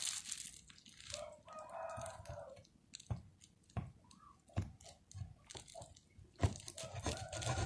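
Small kitchen knife cutting a block of tempeh on a wooden table: several separate sharp knocks of the blade against the wood, with faint handling rustle between them.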